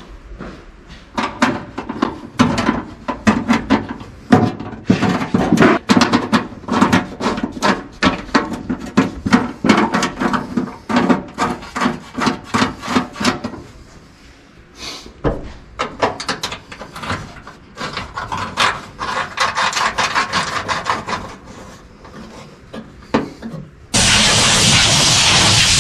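Rapid, irregular scraping and rubbing strokes for about twenty seconds, then, about two seconds before the end, a sudden steady hiss of a compressed-air blow gun.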